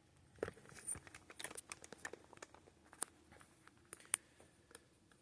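Faint, scattered clicks and crinkling of small parts being handled, likely the fan's screws and hardware in a bag.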